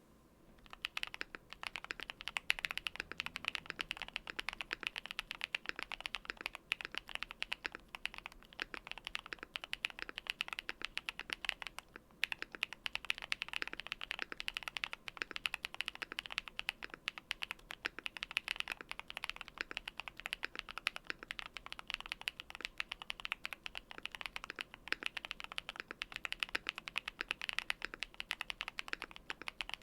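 Continuous fast typing on a QwertyKeys QK60 mechanical keyboard with lubed Dangkeebs Strawberry Milk tactile switches and translucent Cherry-profile keycaps: a dense stream of key clacks, with a brief pause about twelve seconds in.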